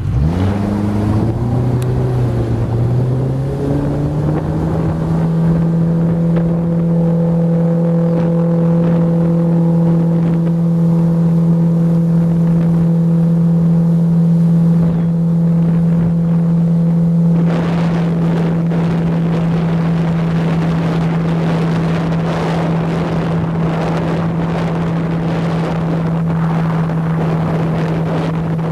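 Outboard motor throttling up, its pitch rising over the first few seconds, then running steadily at cruising speed. From about two-thirds of the way in, wind buffets the microphone.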